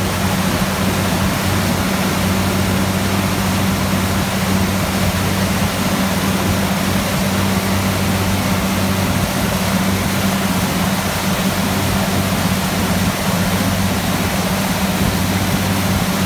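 Motorboat engine running steadily at towing speed, a constant low hum, over the rush of the churning wake water.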